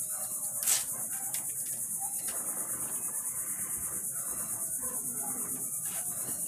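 Steady high-pitched chirring of insects, pulsing evenly a few times a second. Over it come soft clicks and rustles of shrimp being pressed into breadcrumbs in a metal tray, the loudest a brief sharp scrape about a second in.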